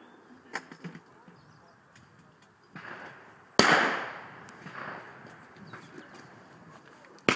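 Two shotgun shots fired at clay pigeons, about four seconds apart, each a sharp crack with an echoing tail that dies away over about a second.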